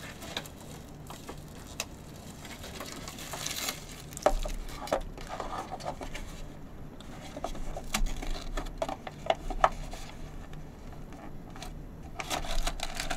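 Packaging of an instant noodle cup being handled and peeled open by hand: crinkling plastic and paper with scattered small clicks, coming in several short bouts.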